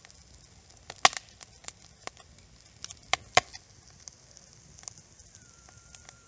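Burning log crackling, with irregular sharp pops, the loudest about a second in and again past three seconds.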